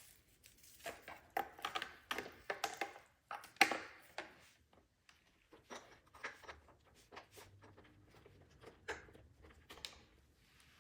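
Plastic parts of a Roomba robot vacuum being handled and fitted: irregular clicks, snaps and scraping rustles, busiest in the first few seconds with one sharp snap a little past three seconds in, then sparser clicks.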